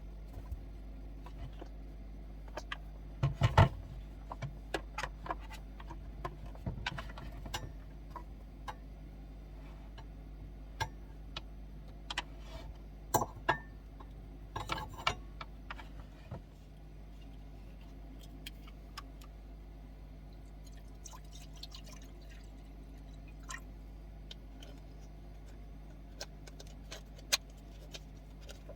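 Scattered clinks, clicks and knocks of small objects being handled, busiest in the first half and sparser later, over a steady low hum.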